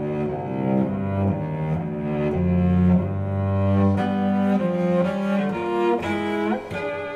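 Solo cello playing slow, sustained bowed notes in a contemporary classical piece, the pitch changing every second or so, with a sliding note near the end.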